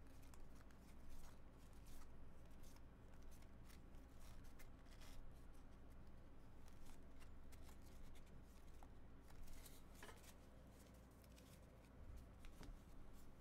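Faint soft clicks and rustles of trading cards being slid one by one off a stack held in the hand, over a low steady hum.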